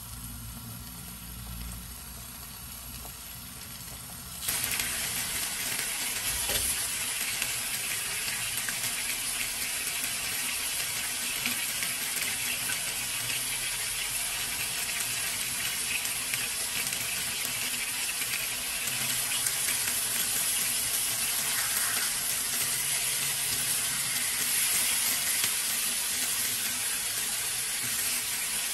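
Chicken breasts frying in oil in a frying pan: a steady sizzle that starts abruptly about four seconds in and carries on, after a quieter opening.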